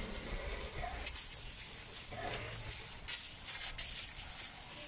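Water hissing from a garden hose spray nozzle and spattering down onto a person's head and body, with a few sharper splashes.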